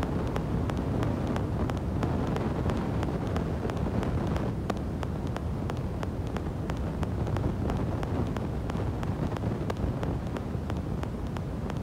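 Wind buffeting the microphone: a steady low rumble of wind noise.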